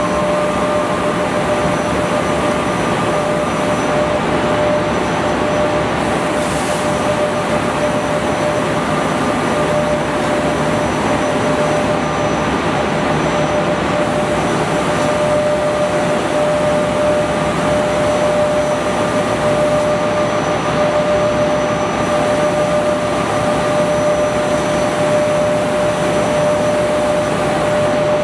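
Automated pull-up production machine running: a steady, loud whirring rush of noise with a constant whine over it.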